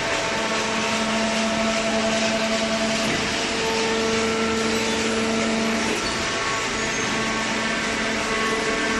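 Hydraulic baler running: a steady machine drone with several whining tones over it. One tone is strong from about half a second in and drops away near six seconds.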